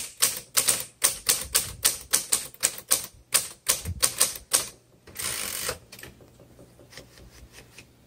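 1941 Royal Arrow manual typewriter typing, with sharp typebar strikes at about three to four a second. About five seconds in a brief sliding rush follows as the carriage is returned, then a few faint ticks.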